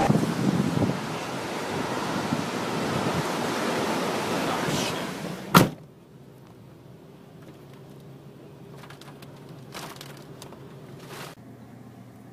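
Steady rushing wind noise on the microphone, filmed from a car, for about five and a half seconds. It ends in a sharp click, and then comes quiet indoor room tone with a faint steady hum.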